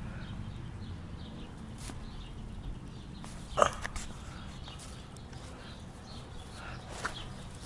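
Handling noise from a handheld phone camera swung low through grass: a steady low rumble with rustling, a sharp knock about three and a half seconds in, and a smaller click near the end.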